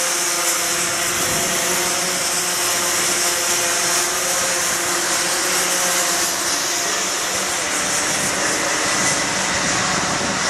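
Several racing kart engines running at once as a pack of karts laps the circuit, a steady overlapping two-stroke buzz with a strong hiss on top and no breaks.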